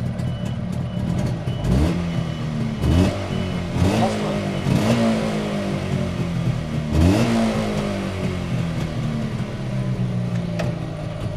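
Jawa 640 two-stroke parallel-twin motorcycle engine idling, with several quick throttle blips in the first half and one more about seven seconds in, each rising and falling back to idle. The engine has freshly honed, second-hand cylinders at 0.06 mm piston clearance and is running in; it runs quietly, with no knocking, rattling or clicking.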